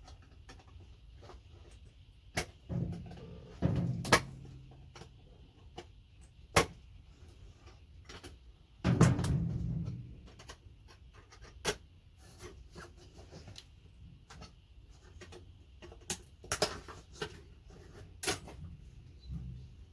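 Pliers working connectors off a computer circuit board: irregular sharp clicks and cracks as the screws snap and parts break away, with a few heavier knocks as the board is handled.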